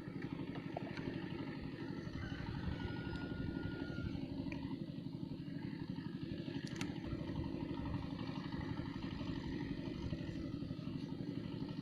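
A small engine running steadily, with a fast even pulse. There is a single sharp click a little past halfway.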